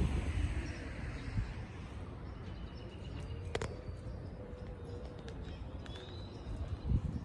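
A dove cooing: a low, slightly wavering coo held for a few seconds midway through, over rumble of wind on the microphone. A sharp click comes about three and a half seconds in.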